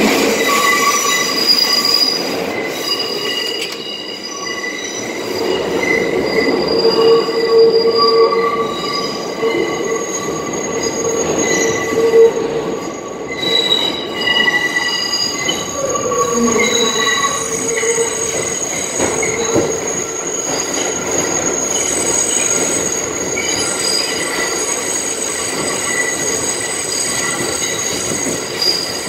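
New York City subway 6 train's steel wheels squealing against the rails, heard from inside the car: several shrill tones that come and go and shift in pitch over the train's running noise.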